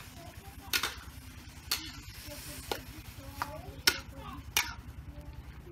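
Metal spatula clanking and scraping against a steel wok while stir-frying sliced cucumbers, with sharp strikes roughly every second, over a faint sizzle.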